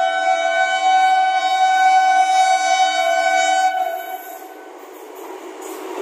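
An Indian Railways WAP7 electric locomotive's horn sounding one long, steady, loud blast that cuts off about four seconds in. Near the end the rumble and rattle of the train on the rails rises as it reaches the crossing.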